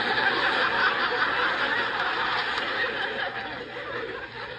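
Sitcom studio audience laughing, heard through a tablet's speaker; the laugh is loudest at first and slowly dies down.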